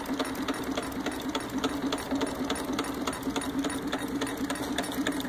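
Model Denny hot air engine running steadily, its moving parts clicking in a fast, even rhythm over a steady hum.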